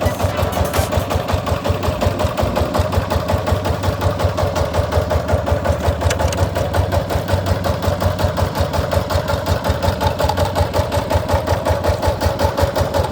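Walking tractor's single-cylinder diesel engine idling with an even, steady putter.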